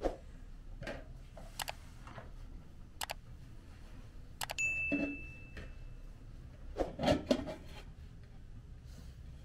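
Light clicks and knocks of bowls and dishes being handled and set down, with a short high ringing ding about halfway through and a louder clatter a little later.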